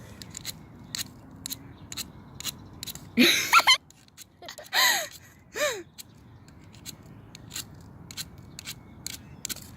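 A knife blade struck and scraped along a fire-starter rod to throw sparks: a run of short, sharp scraping clicks, with three longer, louder scrapes a little after three seconds, near five seconds and just before six.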